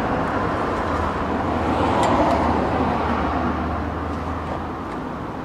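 Road traffic passing: a steady rush of engine and tyre noise with a low engine hum, swelling about two seconds in and then slowly fading.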